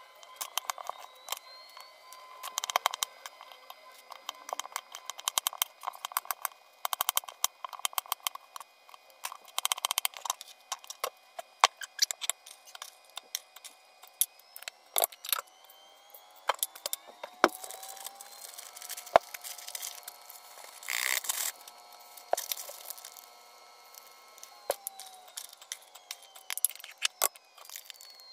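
Kitchen knife chopping apple on a plastic cutting board: quick, irregular taps of the blade striking the board, in runs with short pauses, and a brief louder rasp about three-quarters of the way through.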